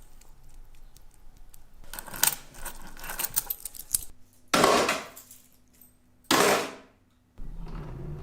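Small metal tools and watch parts clicking and clinking on a workbench, followed by two short, loud rushes of noise about two seconds apart.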